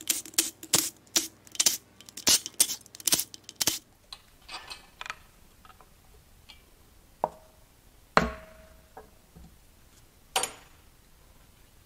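Cordless impact driver run in a quick series of short bursts, backing out the bolts of an engine oil pan. It stops about four seconds in. Then come a few separate sharp metal knocks, the loudest with a brief ringing clank, as a pry tool works the pan loose.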